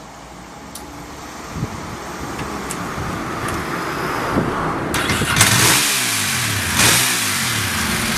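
Ducati Monster S4R's L-twin engine running. It gets louder over the first five seconds, then jumps clearly louder and rougher with throttle from about five seconds in.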